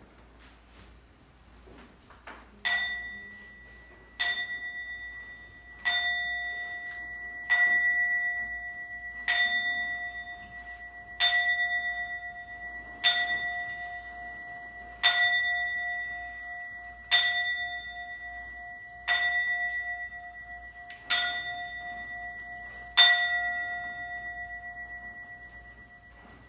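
A bell struck twelve times, about every two seconds, each stroke ringing on and overlapping the next: tolling midnight at the turn of the new year.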